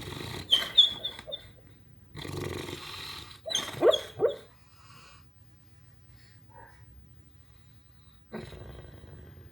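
Dog snoring in its sleep: two long, rasping breaths, each followed by a few loud, sharp snorts with short squeaky glides. After a quieter stretch, another rasping breath comes near the end.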